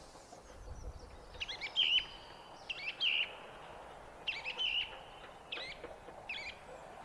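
Song thrush singing: five short whistled phrases, the first three alike and repeated in turn, then two shorter ones.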